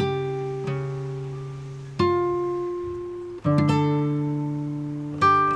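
Background music on a plucked acoustic guitar: slow chords struck every second and a half to two seconds, each left to ring and fade.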